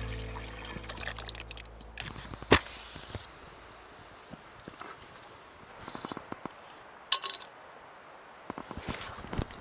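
A few sharp clicks and knocks from camping cooking gear being handled, the loudest about two and a half seconds in and others near the end. Background music fades out in the first couple of seconds.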